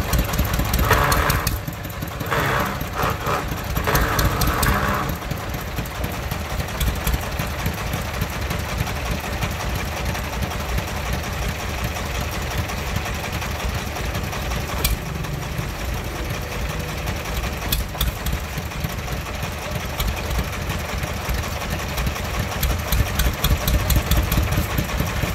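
Single-cylinder diesel engine of a công nông farm truck running in a steady, fast chug, a little louder for a few seconds near the start.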